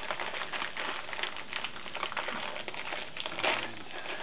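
Thin clear plastic LEGO parts bag crinkling continuously as it is handled and torn open, with a louder crackle about three and a half seconds in.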